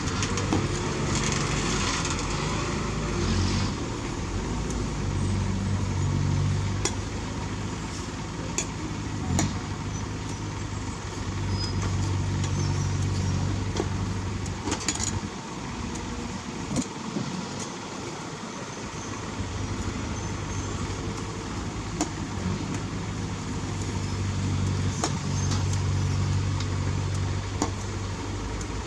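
Heavy diesel earthmoving machinery working under load, the engine drone swelling and easing several times and dropping lowest about halfway through, with scattered sharp metallic clanks.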